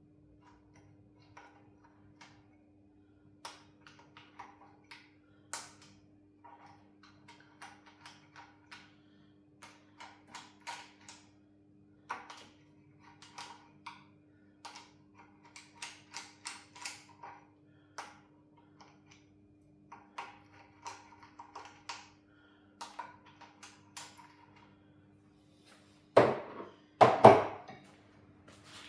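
Metal hand tools clicking and clinking against engine parts as an F6A engine is taken apart, in short irregular clusters, over a faint steady hum. Two loud knocks come near the end.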